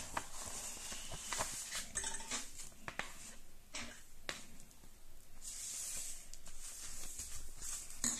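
Clear plastic sleeve crinkling and paper envelopes rustling as a stack of envelopes is slid out and handled, with scattered small clicks and a longer patch of crackling about five to six and a half seconds in.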